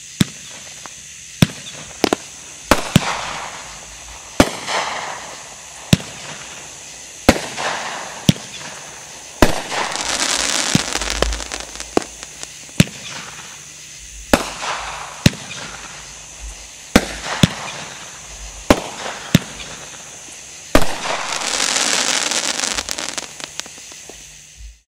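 Treasure Map 500-gram fireworks cake firing its shots of flaming balls and reports: some twenty sharp bangs at irregular intervals, about one a second, with noisy swells between them that are loudest about ten seconds in and again near the end.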